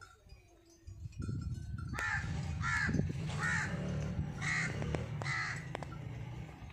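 A crow cawing five times in a row, harsh calls a little under a second apart, over a low steady rumble.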